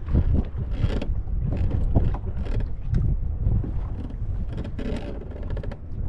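Strong wind buffeting the microphone in a steady low rumble, with irregular clicks and rattles over it.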